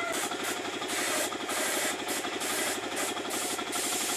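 Compressed-air paint spray gun hissing in repeated short bursts as paint is sprayed onto fibre statues, over the steady fast chugging of the air compressor that feeds it.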